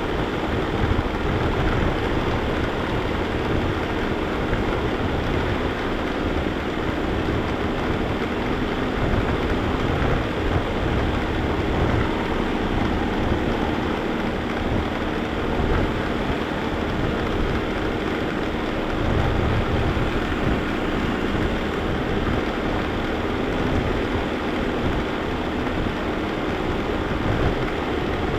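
Vacuum cleaner running continuously, heard from a camera riding on it: a steady motor noise with a faint hum and an uneven low rumble.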